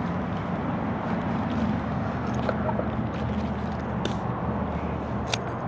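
Steady low outdoor background rumble, with a couple of faint clicks about four and five seconds in.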